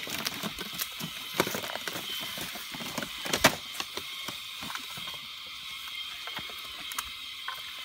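Scattered clicks and knocks from handling things, the loudest about three and a half seconds in, over a steady high-pitched drone.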